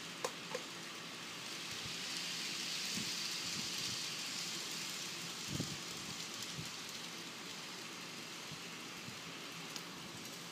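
Model trains running on sectional track: a steady rolling whirr of small wheels and motors that swells as a freight train passes close by, with a few light clicks and knocks.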